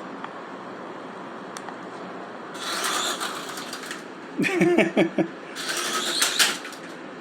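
Toy RC helicopter's small electric motor and rotor whirring in two short spurts, with clattering as it knocks against things.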